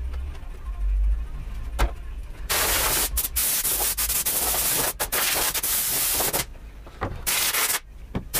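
Compressed-air blow gun hissing in long blasts with short breaks, blowing dust and debris off a workbench, then a few short spurts near the end.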